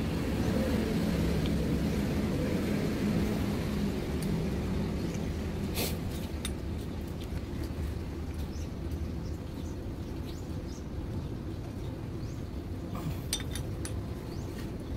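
A steady low machine hum in the background, with a few sharp metallic clicks of a wrench on a rocker arm's valve-clearance adjusting screw and locknut as the tappet clearance is set with a feeler gauge.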